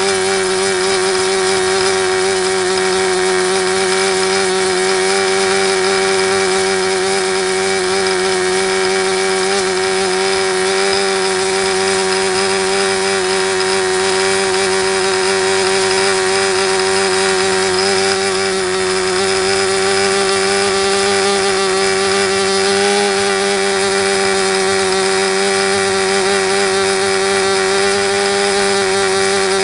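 SuperTigre G51 two-stroke glow model-airplane engine turning a 10x6 propeller, running steadily at a high, even pitch with no change in speed. It is being broken in after a crash rebuild, run rich and not yet peaked.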